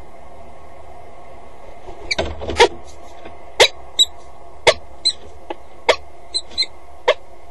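Peregrine falcon arriving on a metal grating: a short flurry of knocks about two seconds in, then single sharp clicks and taps roughly once a second, some with a brief high metallic ping, over a steady low hum.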